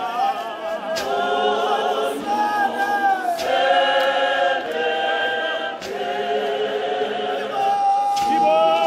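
Church congregation singing a cappella in harmony, men's and women's voices together on long held notes with a little wavering in the pitch. A sharp knock cuts through the singing about every two and a half seconds.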